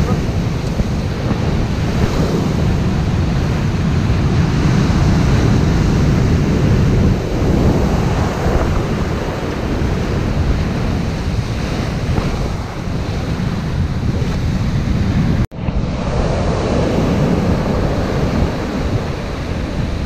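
Heavy storm surf: big waves breaking and washing up a sandy beach in a continuous rushing roar, mixed with strong wind buffeting the microphone. The sound drops out for an instant about three quarters of the way through.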